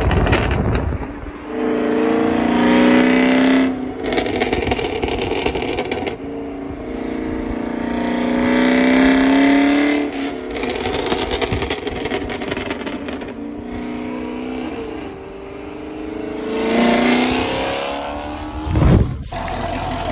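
Chevrolet Camaro SS's 6.2-litre V8 through catless long-tube headers, an X-pipe and a dual-mode exhaust with the valves open, revving and pulling away in several long rising sweeps. Wind buffets the microphone, and a sharp loud burst comes just before the end.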